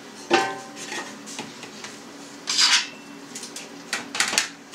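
Stainless steel tray knocking against the steel base of a cheese press with a short metallic ring. Then comes a scrape of metal sliding on metal, and a few quick clicks and taps near the end.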